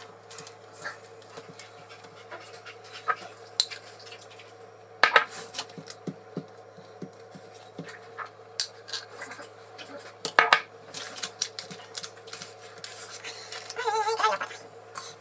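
Metal spoon scraping and tapping as Nutella is spread over puff pastry on a parchment-lined tray: irregular soft scrapes with sharp clicks every second or so. A steady low hum runs underneath, and a short wavering, voice-like sound comes near the end.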